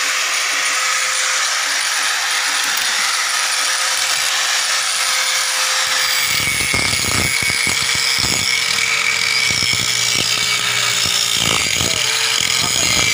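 Electric angle grinder running at speed with a steady whine. From about six seconds in its disc is pressed against a metal pipe in short, uneven contacts, and the whine dips slightly under the load.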